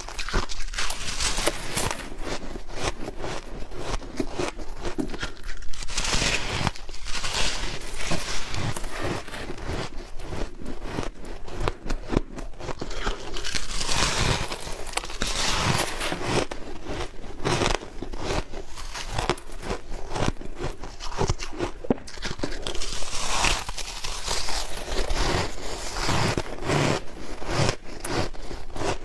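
A person biting into powdery white freezer-frost ice, close up: a dense run of crisp crunches and crumbling crackles, with louder flurries of bites now and then.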